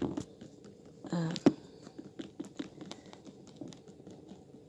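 Light rustling with scattered small clicks and knocks as things are handled among the bedding and gear in a car's cargo area. A short murmur of a voice comes about a second in.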